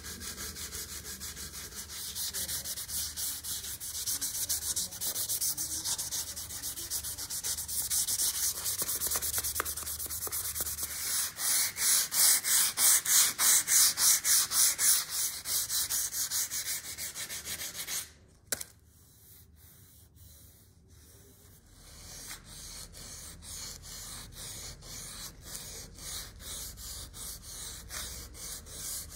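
Hand sanding of a vintage Wilton C-clamp's metal, rhythmic back-and-forth rasping strokes about two a second. The strokes grow louder toward the middle, pause briefly about two-thirds through, then resume more lightly.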